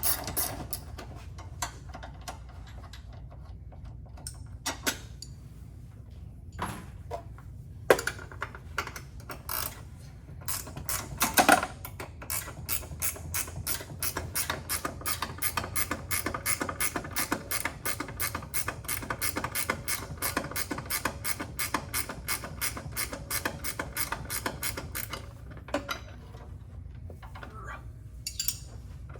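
Hand ratchet wrench clicking in long even runs, at about five clicks a second, as bolts are backed out, with a couple of louder metallic knocks from tools or parts.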